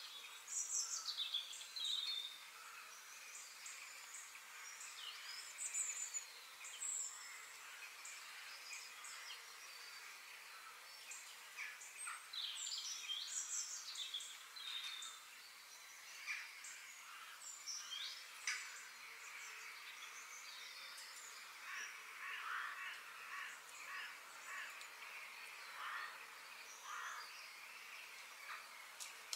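Faint background birdsong ambience: many small birds chirping and calling in short, overlapping phrases, over a steady soft hiss.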